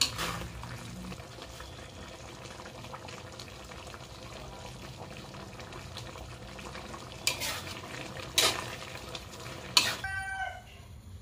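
Metal spatula stirring a thick pork and banana stew in a large metal wok, scraping and knocking against the pan, over a steady low simmering sizzle. A sharp scrape comes at the start and three more come in quick succession near the end.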